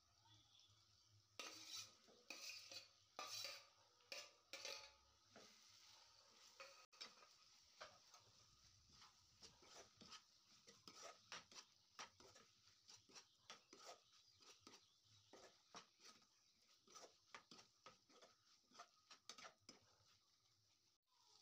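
A metal spoon scraping boiled egg and potato pieces off a steel plate into a non-stick frying pan, with a handful of sharp clinks in the first few seconds. Then a quieter, steady run of light scrapes and taps as the spoon stirs them into the masala in the pan.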